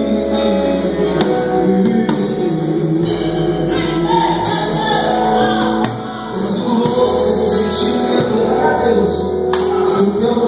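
Congregational gospel singing with a band: a group of voices singing together over sustained bass and keyboard, with tambourine.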